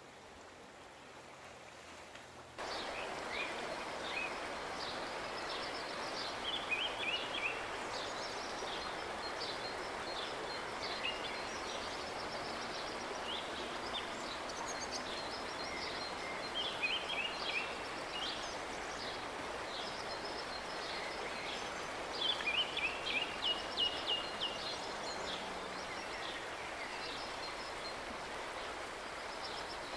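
Steady rush of a flowing river with songbirds chirping over it, including a quick run of repeated notes about three-quarters of the way through. The rush starts suddenly about two and a half seconds in, after a quieter stretch.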